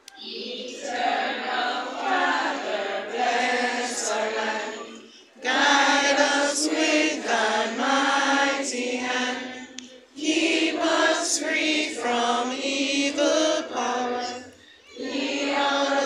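A group of children singing together as a choir, in long phrases with short breaks about every five seconds.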